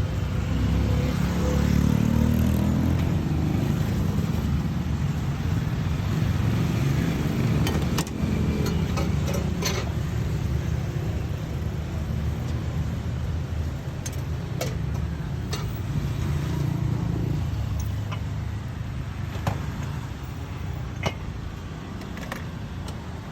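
Motor vehicle running with a steady low rumble, with a few sharp clicks or knocks in the second half.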